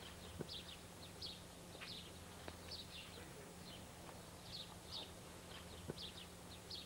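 Faint birds chirping: a run of short, high, downward-sweeping chirps, roughly two a second, over a low steady hum, with a couple of faint clicks.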